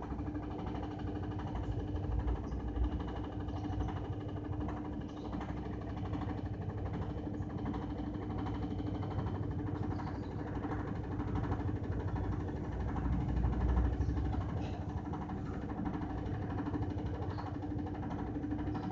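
Washing machine running: a steady motor hum with one strong held tone over a low rumble, which swells a little about two-thirds of the way through, with faint scattered clicks and rattles.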